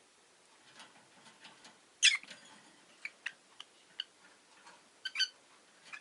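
Rosy-faced lovebird chirping: a loud chirp about two seconds in, a run of short sharp chirps after it, and a quick pair of chirps near the end.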